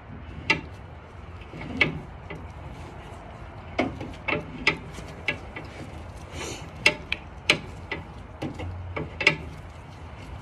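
Spare-tire hoist under a Toyota Tundra being cranked down with the jointed tire-tool rod: irregular clicks and knocks, about one or two a second, over a low steady hum.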